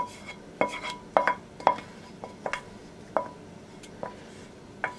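Wooden spoon scraping thick caramel sauce out of a stainless steel pot, knocking against the pot in a string of irregular sharp taps, each followed by a brief metallic ring.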